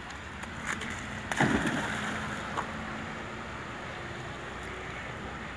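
One splash in the lake about a second and a half in, then a steady rush of water and wind as a Staffordshire bull terrier swims out after a thrown stick.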